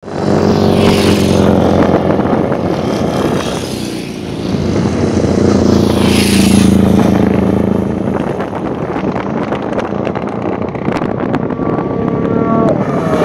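Classic racing motorcycle engines running loud at speed, with two louder pass-bys, about a second in and around six seconds.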